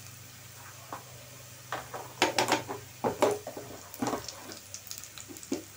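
Wooden spatula stirring and scraping onion, ginger and garlic frying in oil in a kadai, with a run of quick scraping strokes starting about two seconds in and a few more near the end, over a steady low hum.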